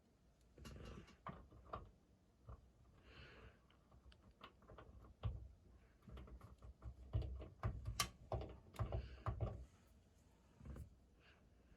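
Scattered small clicks and knocks of parts being handled and fitted by hand at a car dashboard, with a run of louder, duller knocks about seven to nine and a half seconds in.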